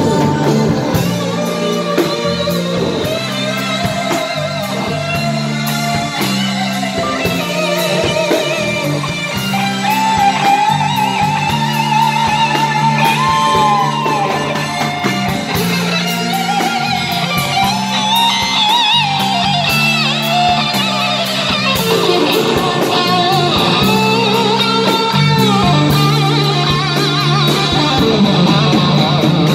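Live band rehearsal of a rock ballad: electric guitar over held low bass notes, with a woman singing a wavering melody into a microphone.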